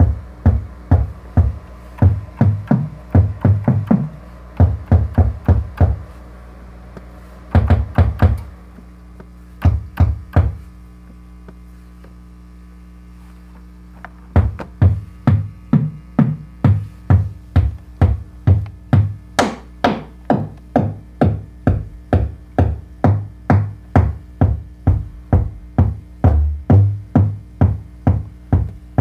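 Make Noise 0-Coast synthesizer patched as a deep kick/tom drum, playing a steady rhythm of low pitched hits about two a second, the pitch shifting between hits as the knobs are turned. The pattern stops twice, leaving a low hum, then starts again about halfway through.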